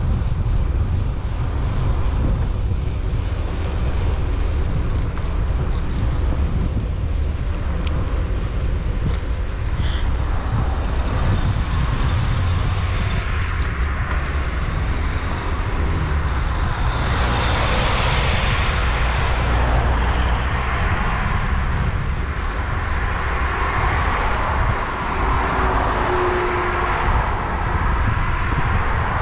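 Steady wind rumble on the microphone of a camera moving along a roadside, with cars passing on the road: their tyre and engine hiss swells about two-thirds of the way in and again near the end.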